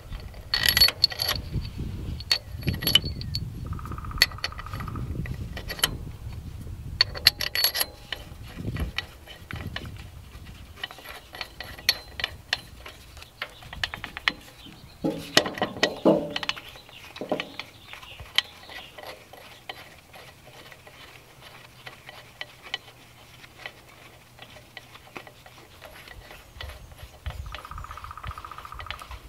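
Head bolts and small steel parts handled on a bare Kubota diesel cylinder head: scattered metal clinks and light taps, busiest in the first several seconds and again around halfway. A brief steady tone sounds twice, about four seconds in and near the end.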